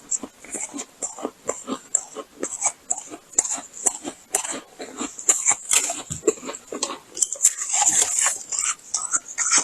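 Close-miked mouth sounds of someone chewing freezer frost: many quick, irregular crunches one after another.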